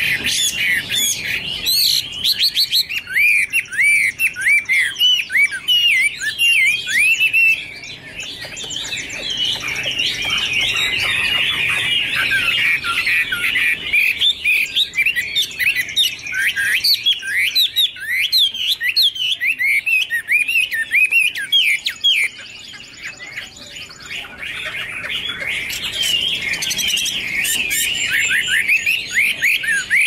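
Chinese hwamei (melodious laughingthrush) singing a long, rapid run of varied whistled phrases and slurred notes, with a short lull about two-thirds of the way through.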